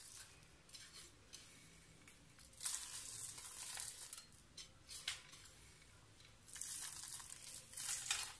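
Fingers rustling and crunching over dry, flaky broken milfeh pastry as crushed nuts and raisins are scattered and pressed in by hand. It comes in a few spells of crisp crackling, the longest about three seconds and seven seconds in.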